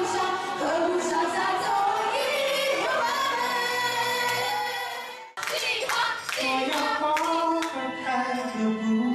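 Women's voices singing together, joined in the second half by hand-clapping. The sound breaks off abruptly for a moment about five seconds in.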